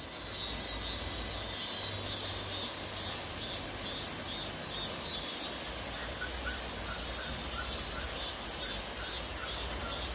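Steady rush of flowing river water, with a few faint bird chirps in the second half.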